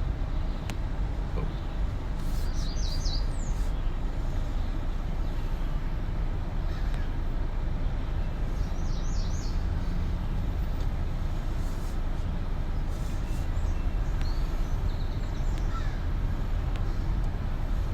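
Car coasting in neutral, a steady low rumble of tyres and road noise. A bird chirps briefly twice.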